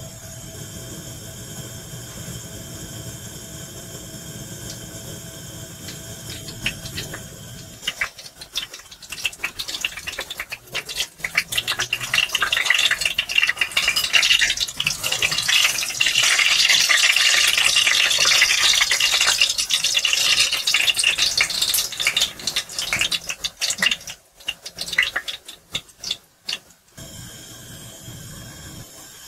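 Hot oil sizzling and crackling around a panko-breaded burger patty as it shallow-fries. It starts soft, builds into a dense crackle about eight seconds in, and dies away in patches near the end.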